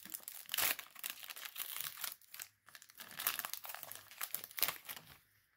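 Foil wrapper of a Pokémon Sword & Shield booster pack crinkling and tearing as it is torn open by hand, in a dense run of crackles that stops just before the end.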